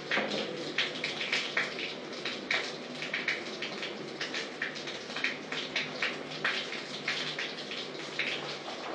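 Water spattering and dripping in a small tiled shower stall: an uneven patter of splashes.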